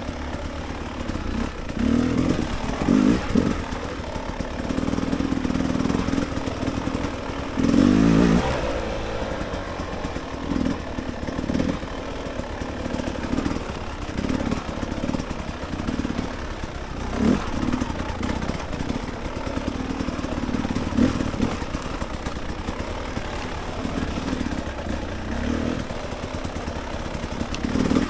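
Dirt bike engine running on a trail ride, its throttle opening and closing so the engine note rises and falls again and again, with the strongest surge about eight seconds in.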